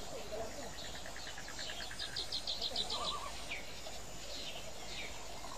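Tropical forest birds and insects calling: a rapid series of about eight high chirps around two seconds in, a fast trill, and scattered short falling calls over a steady background hum.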